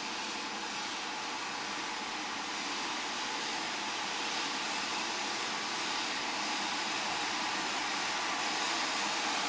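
Steady whooshing machine noise heard from inside a car cabin while the car is lifted up a car vending machine tower. It grows slowly louder.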